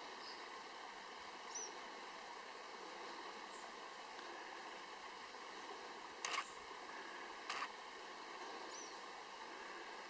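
Quiet outdoor background hiss with a faint steady hum. Two faint, short, high bird chirps sound, and there are two brief rustles or taps a little over a second apart, about six seconds in.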